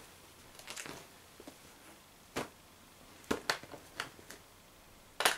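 Handling noise: a few light, separate clicks and knocks as an Umarex HDS68 pistol and small ammo tins are handled on a table, with a sharper double click near the end.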